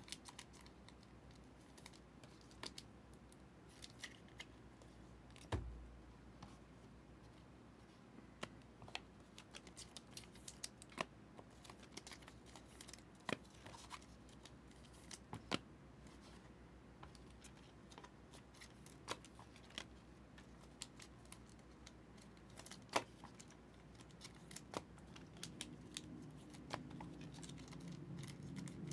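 Faint, scattered clicks and ticks of trading cards and their packs being handled, with one soft thump about five and a half seconds in.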